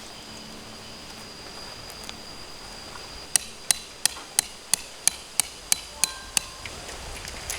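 Tent peg being hammered into the ground: ten sharp metallic strikes, about three a second, starting a few seconds in.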